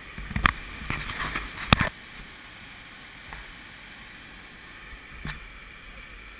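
Steady rushing hiss of whitewater in a creek running at 175 cfs. Over it, a cluster of sharp knocks and bumps in the first two seconds and one more about five seconds in.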